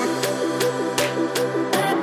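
Electronic background music with a steady beat, a bass line and a synth melody.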